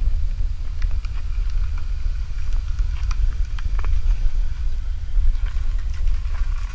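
Silver Volvo XC70 estate rolling slowly past close by, heard as a low, fluttering rumble with faint ticks over it.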